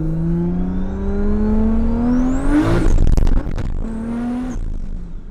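Single-turbo 2JZ inline-six of a MKIV Toyota Supra through a 4-inch Tomei titanium exhaust, accelerating hard. The engine note climbs steadily with a rising turbo whistle, and about three seconds in there is a loud, rough burst. A shorter climb follows, then the engine fades away.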